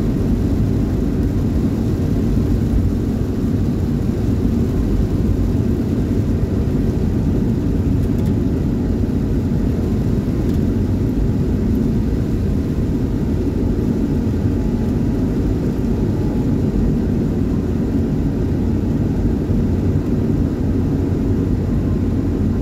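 Steady road and engine noise inside a car driving on a wet highway in heavy rain, the low drone of the tyres on the soaked road and the rain on the car running on unchanged.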